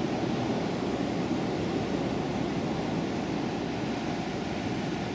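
Ocean surf breaking and washing up the beach in a steady rush, with wind blowing on the microphone.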